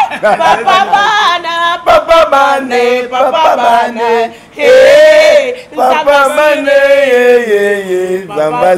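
Several voices, men and a woman, singing a chant together, with long held notes.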